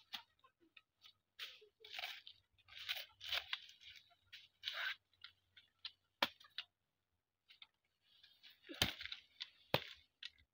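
Machete chopping through banana pseudostems: a run of cutting strokes in the first half, a short pause, then a few sharper strikes near the end.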